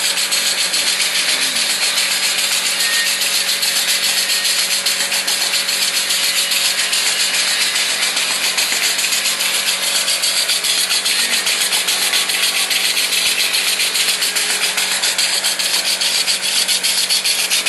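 Incense cone making machine running steadily, with a fast, even mechanical clatter over a constant hiss and hum.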